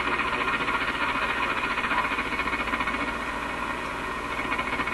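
Steady static hiss from the RCA A25 vacuum-tube radio's speaker as it is tuned down the AM band with no station tuned in.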